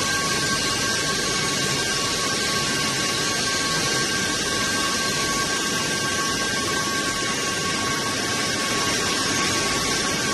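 Sleeve labeling line with its steam shrink tunnel running: a steady machine hiss with two steady high tones over it.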